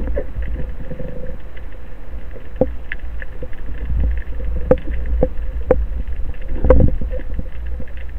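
Underwater ambience picked up by a camera in its housing: a steady low rumble of water movement in a rough sea, with scattered sharp clicks and crackles, a few louder ones in the second half.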